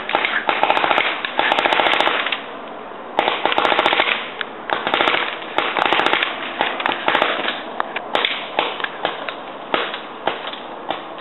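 Paintball markers firing long strings of rapid shots, several strings back to back, thinning to scattered single shots in the second half.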